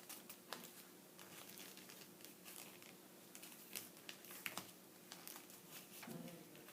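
A paper airplane being folded and creased by hand: faint, scattered paper rustles and crinkles.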